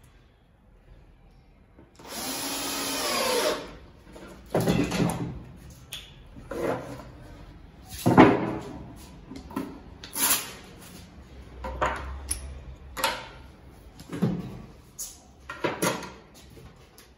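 Cordless drill driving a screw to fix a telescopic drawer slide to the drawer side: one run of about a second and a half, its pitch gliding as it spins. It is followed by a string of short knocks and clatters from the drawer and slide being handled, the sharpest about eight seconds in.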